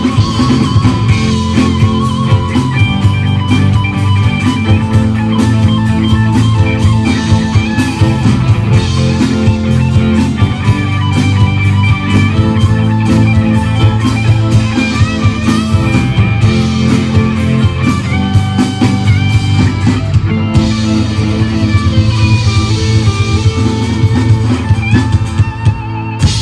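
Live rock band playing an instrumental passage with no singing: an electric guitar leads over strummed acoustic guitar, bass and drums.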